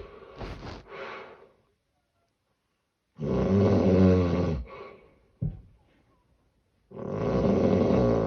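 Heavy snoring of a sleeper with severe sleep apnea, the sound of a partly blocked airway. A ragged breath fades into a pause, then a loud snore lasts about a second and a half, followed by a short snort, another pause, and a second loud snore that starts near the end.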